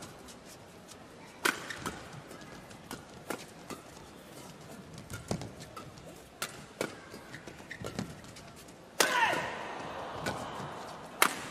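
Badminton rally: a shuttlecock struck back and forth by rackets, sharp hits every second or two, with a shoe squeak on the court. The loudest hit comes about nine seconds in, after which the hall's background noise swells.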